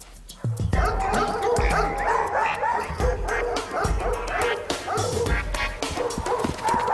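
Many dogs barking and yipping at once over background music, starting about a second in.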